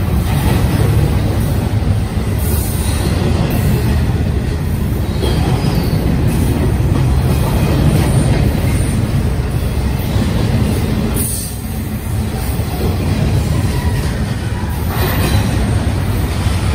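Double-stack container well cars of a freight train rolling past close by: a steady rumble of steel wheels on rail, easing briefly about two-thirds of the way through.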